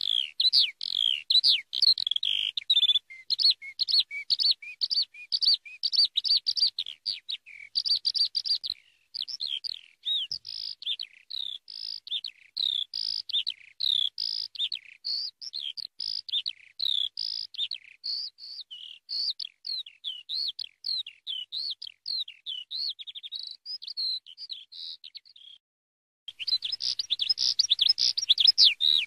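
Eurasian skylark singing: a long, rapid, unbroken stream of high chirps, trills and warbles. It breaks off for about a second near the end, then starts again louder.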